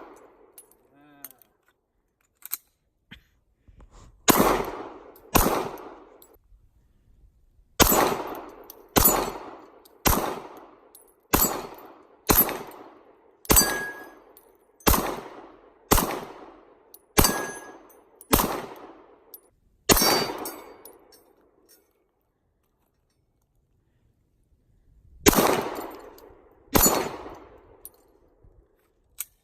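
9mm Glock pistol with a Shadow Systems SS9C slide being fired at a steady pace, each shot a sharp crack with a short echoing tail. Two shots come first, then a string of about eleven roughly a second apart, a pause of several seconds, and two more shots.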